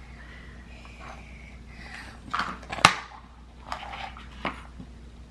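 A few short clicks and taps of toys being handled, the loudest about three seconds in, over a low steady room hum.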